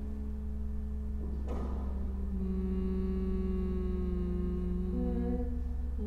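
Slow, drone-like music: long held tones, two or more at once, over a steady low hum. A short attack comes about one and a half seconds in, and the notes change pitch twice afterward.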